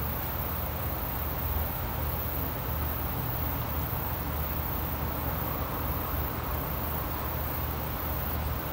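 Steady outdoor ambience: a constant low hum with faint, evenly repeating insect chirps.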